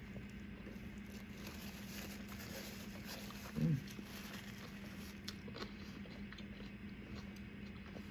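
Close-up eating sounds of someone chewing a toasted chicken wrap, with faint mouth clicks. About three and a half seconds in comes one short, low, hummed sound like an "mm". A steady low hum runs underneath.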